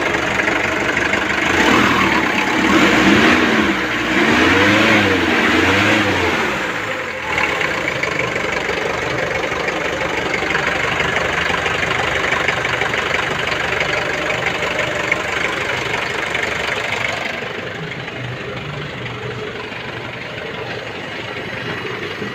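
Mazda R2 diesel engine running after its injectors were rebuilt. It is revved in several quick blips a couple of seconds in, then settles to a steady idle.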